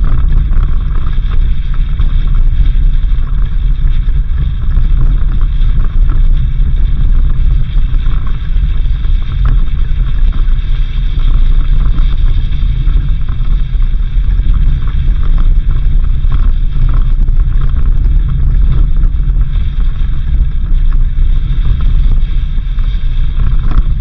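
Suzuki Jimny driving on a dirt road: a steady low rumble of engine, tyres and wind against the microphone, with scattered small knocks from the rough surface.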